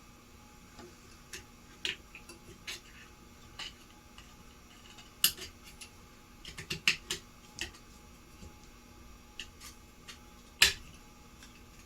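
Scattered small clicks and taps of hard parts being handled and fitted as a ceiling fan's switch housing and circuit board are reassembled, with a quick cluster in the middle and one sharper knock near the end.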